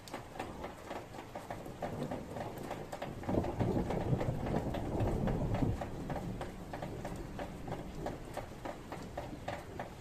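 Rain dripping and pattering close by in quick irregular ticks, with a low rumble of thunder that swells about three seconds in and dies away over the next few seconds.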